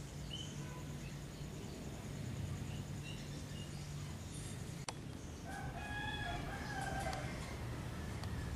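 A rooster crowing once, a call lasting about a second and a half past the middle, over a low steady hum in the first half and a few faint bird chirps. A single sharp click comes shortly before the crow.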